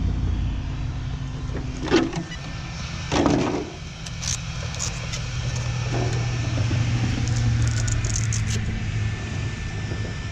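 Road traffic: a car going by on the street, heard as a steady low hum. Two sharp knocks near the start, about two and three seconds in.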